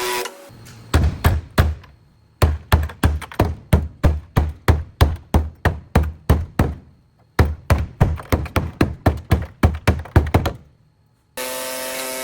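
Rhythmic hammering, about three blows a second, in three runs with short pauses.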